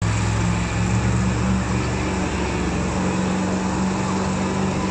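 Several monster truck engines, supercharged big-block V8s, running steadily at idle, with steady low tones that shift a little about three seconds in as one truck drives off across the dirt.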